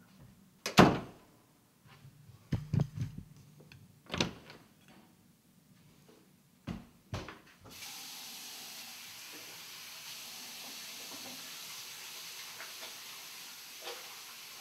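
Several sharp knocks and thumps, the loudest about a second in, then a steady hiss from about halfway on.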